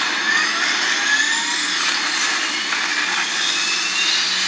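Jet engine noise with several slowly rising whines, from a fighter-jet film clip played through the OnePlus 7 Pro's dual stereo speakers, with little deep bass.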